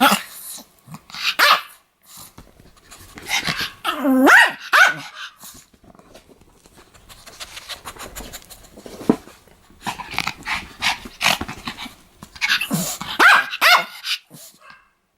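Pomeranian barking and growling in bursts, with a quieter stretch in the middle.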